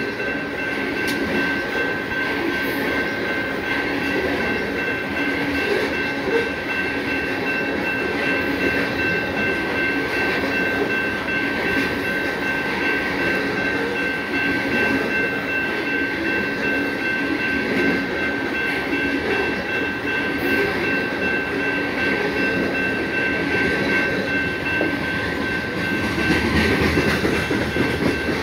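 BNSF freight train of open-top hopper cars rolling past, with the steady noise and clatter of steel wheels on the rails and two steady high tones running through it. It swells slightly near the end.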